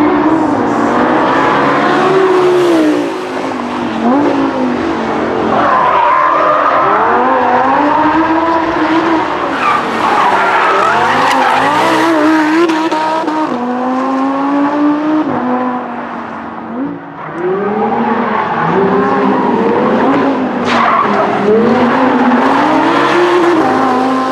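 Lamborghini Huracán LP610-4's mid-mounted V10 revving up and down again and again as the car powerslides, with tyres squealing and skidding. A short sharp crack about three-quarters of the way through, and the sound fades out at the very end.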